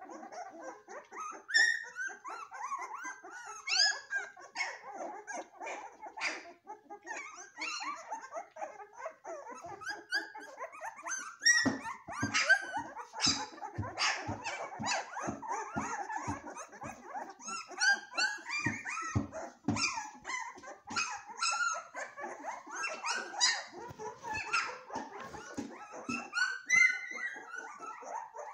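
A litter of young puppies yipping, whining and growling over one another in a steady chorus of short calls. A run of sharp knocks comes through the middle.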